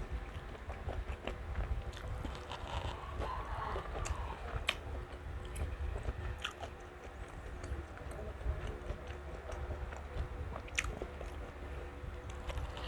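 A person chewing and biting food close to the microphone, with a sharp crunch or click now and then.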